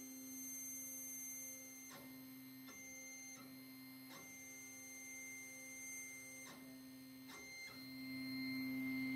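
Stepper motors of a CrossFire Pro CNC plasma table driving the gantry as it plots a part with a pen: a steady whine that breaks and shifts each time the motion changes direction, growing louder near the end.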